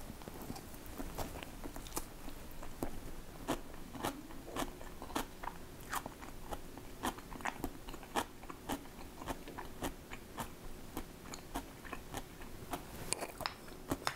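A person chewing crunchy food close to the microphone, with crisp crunches two or three times a second. A faint steady hum comes in about a third of the way through.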